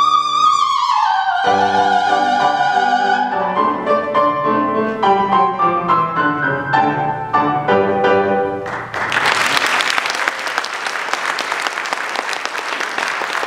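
A soprano holds a high final note with vibrato, drops to a lower held note and stops about three seconds in, while the piano plays on with a short closing passage. Applause from the audience starts about nine seconds in.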